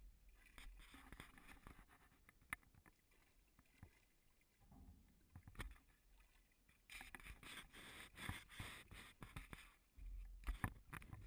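Faint water splashing and sloshing as a dog moves about in water, coming in two stretches, with scattered small knocks and a low rumble near the end.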